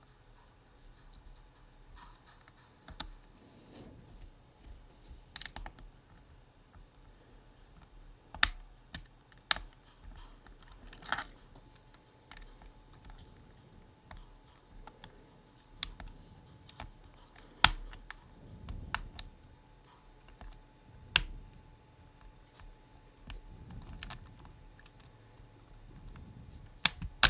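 Scattered, irregular clicks and clacks from a Win60 HE keyboard being pressed and handled, a few sharp ones standing out among quieter taps.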